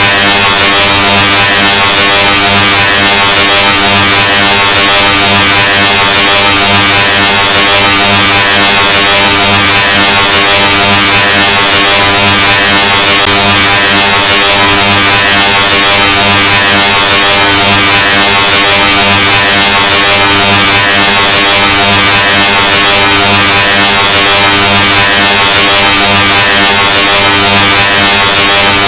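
The 'Loudness' meme sound effect: an extremely loud, heavily distorted, clipped buzz. It is a steady low hum with many overtones and harsh hiss on top, unchanging throughout.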